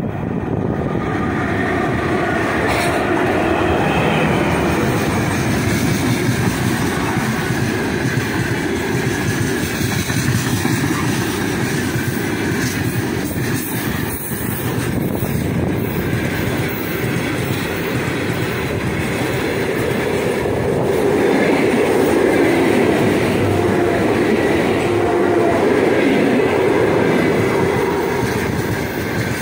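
A heavy freight train hauled by a 3ES5K 'Ermak' electric locomotive passing close by: the locomotive, then a long run of loaded open wagons with steady wheel clatter on the rails. Growing louder in the last third as an ED9M electric commuter train comes up on the next track.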